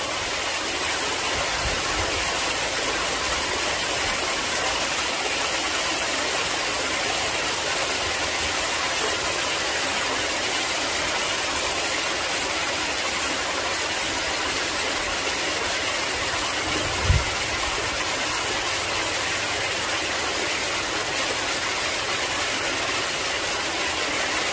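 Steady rushing noise with no clear pitch, holding level throughout, with a single short low thump about seventeen seconds in.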